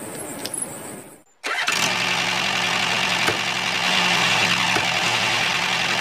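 A small motor running steadily with a high whine, cutting in abruptly about a second and a half in. Before it come a few light clicks and taps.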